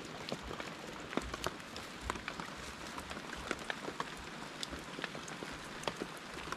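Steady rain falling on leaves and ground: an even hiss with many scattered sharp drop ticks at irregular intervals.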